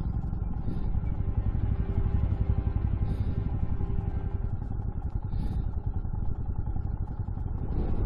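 Motorcycle engine running steadily under way, its firing pulses close and even.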